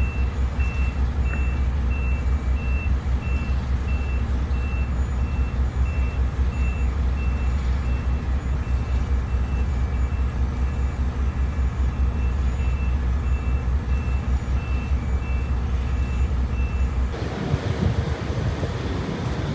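A vehicle's reversing alarm beeping steadily, about two beeps a second, over a strong low rumble. The beeping stops about 17 seconds in and gives way to wind buffeting the microphone.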